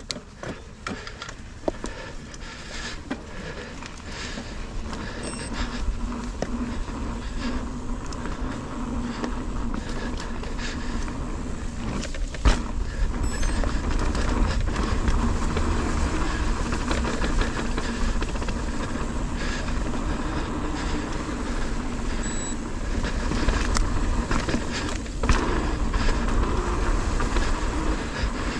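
Ibis Ripmo AF mountain bike being ridden on a dirt trail, heard from the GoPro on the bike or rider: a steady low rumble of tyres and air, with many small clicks and rattles over the ground. It builds up over the first few seconds as the bike gets going, with a sharp knock about twelve seconds in.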